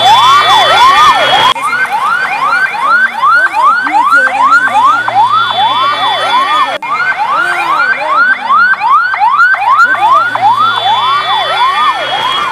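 Siren-like sound effect laid over the scene: a rapid, repeating rising-and-falling wail, about three wails a second. It breaks off and restarts at abrupt cuts about a second and a half in and again near the middle.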